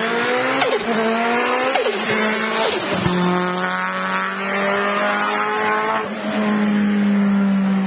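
Race car accelerating hard away uphill, its engine pitch climbing and dropping sharply at each upshift: three quick shifts in the first three seconds, then a longer pull and another shift near the end.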